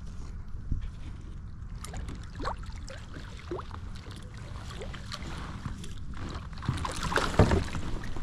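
Wind rumbling on the microphone, with small clicks and knocks. Near the end, louder splashing as a large redfish thrashes at the surface beside the kayak while it is being netted.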